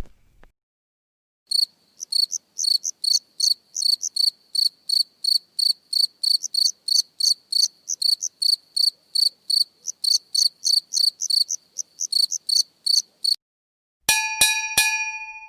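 Cricket chirping sound effect, about three even, high chirps a second: the stock 'awkward silence' meme sound. Near the end it stops, and three quick ringing dings follow.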